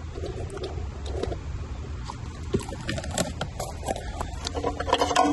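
Scattered light clicks and knocks from hands handling the e-bike's cables, connectors and frame, over a low rumble, the knocks coming closer together near the end.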